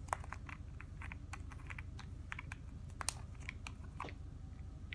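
Scattered light clicks and ticks of hands opening the plastic cap of a small e-liquid bottle, with two sharper clicks, one right at the start and one about three seconds in.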